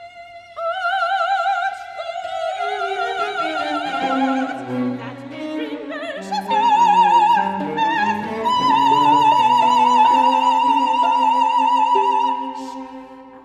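A soprano singing in classical style with two cellos accompanying. Her voice enters about half a second in, and from about halfway she holds a long high note with a wide vibrato over the sustained cello notes, fading near the end.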